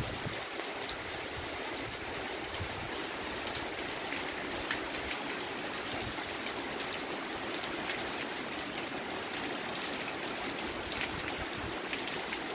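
Heavy rain falling steadily, an even hiss with many scattered sharp drop ticks through it.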